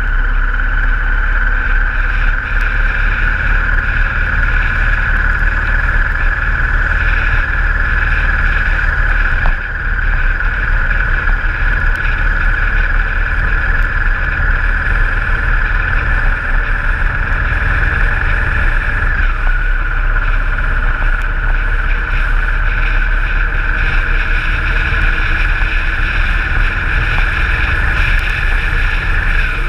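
Motorcycle engine running steadily at cruising speed with wind noise on the microphone: a constant low drone under a steady high whine that dips in pitch slightly about two-thirds of the way through.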